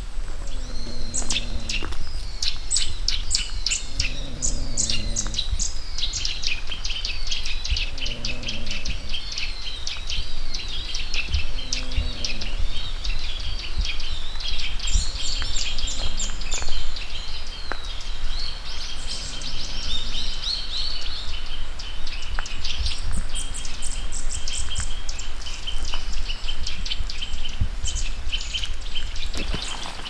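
Many small birds chirping and calling at once, quick overlapping chirps and short whistles, over a steady low rumble.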